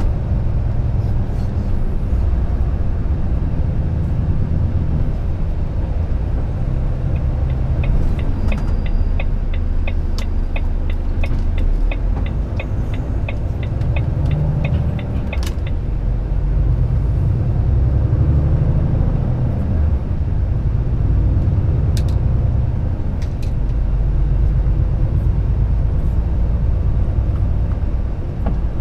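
Volvo truck's diesel engine running while driving, heard from inside the cab as a steady low rumble. A rapid, even ticking of about four a second runs for some eight seconds in the middle, and a few sharp clicks come later.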